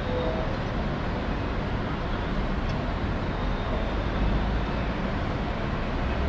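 Steady wash of distant city traffic with a low rumble underneath. A short faint tone sounds just after the start.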